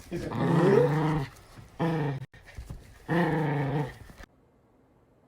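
Dog growling and grumbling in three drawn-out vocalizations that waver in pitch, the middle one short. The sound cuts off abruptly about four seconds in.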